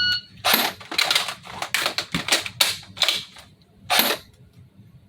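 Shot timer's start beep, then a quick, irregular string of sharp shots and clicks from an FN P90 airsoft replica, the last about four seconds in.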